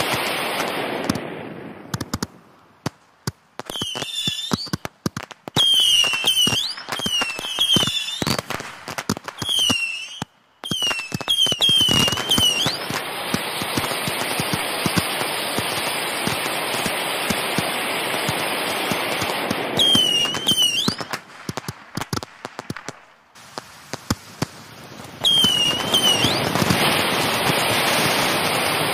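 Fireworks display: many sharp bangs and cracks, with clusters of short, high whistles a few seconds in and again around twenty and twenty-six seconds in. Between the bangs there are stretches of dense, steady crackling hiss.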